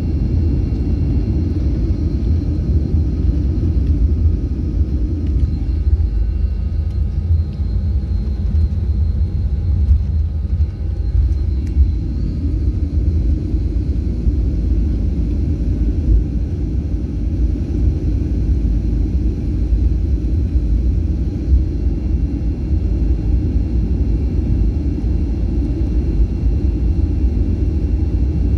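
Cabin noise of a jet airliner taxiing: a steady low rumble from the engines at low power, with a faint steady high whine.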